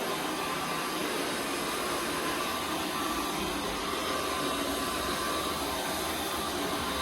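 Carpet-cleaning extraction machine's vacuum running steadily: a continuous rushing hiss with a faint steady whine.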